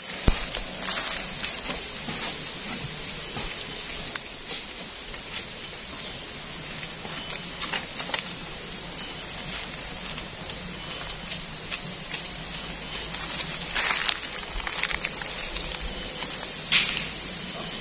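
Forest insect chorus: one steady, high-pitched, unbroken drone over a hiss, with a few faint clicks, including one a little before the end.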